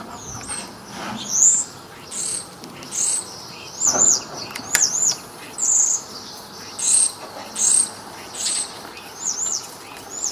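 A small bird chirping over and over, short high calls that dip and rise, coming a little more than once a second. There are a couple of faint clicks around the middle.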